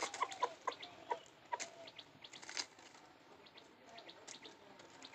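Rooster giving short soft clucks while pecking and scratching in dry leaf litter, with small crackles of the leaves. The clucks and crackles come thickly in the first couple of seconds, then thin out.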